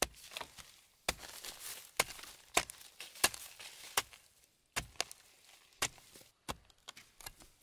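Hand hoe chopping into soil and dry grass, a series of sharp strikes every half second to a second, with scraping and crumbling earth between strokes.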